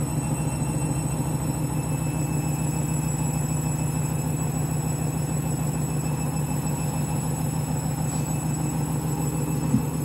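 Candy Grand'O Vita front-loading washing machine spinning its drum at a steady speed during the 400 rpm final spin: a level motor whine over a low rumble. A couple of knocks come right at the end.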